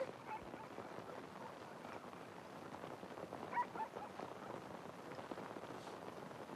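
Faint steady background hiss, with a brief faint animal call about three and a half seconds in.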